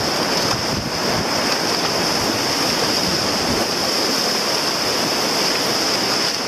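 Whitewater rapid rushing and splashing steadily around a tandem kayak as it runs through the rapid.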